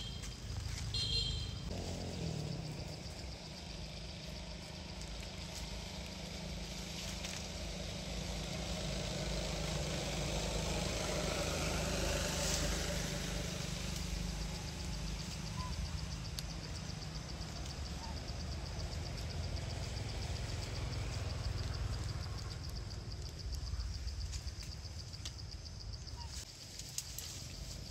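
Steady engine rumble of a motor vehicle, swelling as it passes by about twelve seconds in, with a steady high whine through the second half.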